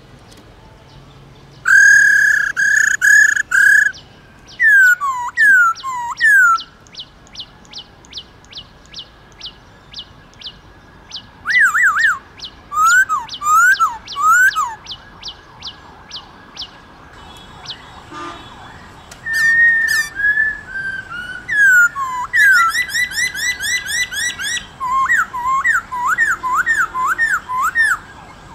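Black-throated laughingthrush singing: phrases of loud, clear whistles, many notes sliding downward, broken by short pauses, with quick runs of thin high notes between the phrases.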